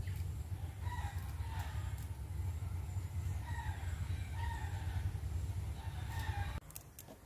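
Chickens calling, with a rooster crowing several times, over a low steady rumble that cuts off near the end.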